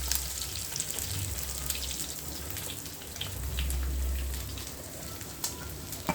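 Small marinated fish shallow-frying in hot oil in a pan: a steady sizzle with scattered pops and crackles, over a low hum that swells and fades.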